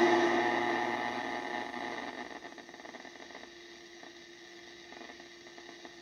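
Receiver audio from a Yaesu FT-102 HF transceiver being tuned on the 10-metre band: loud static hiss that fades away over about the first two seconds, leaving a faint steady hiss with a faint low tone.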